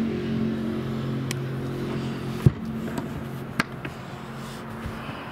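A steady low mechanical hum with a few even pitches, fading near the end. A single hard thump comes about two and a half seconds in, and a sharp click about a second later.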